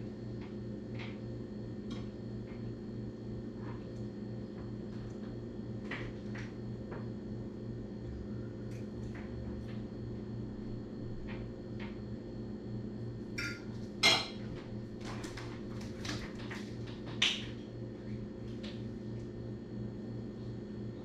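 Scattered clinks and taps of cutlery against a plate during a meal, with two sharper, louder clatters about two-thirds of the way through, over a steady low hum.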